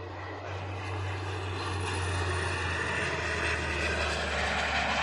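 Model Concorde jet flying low past, its engine noise a rushing sound that grows steadily louder as it approaches. A thin high whine sits on top of the rush and slowly falls in pitch as the model passes.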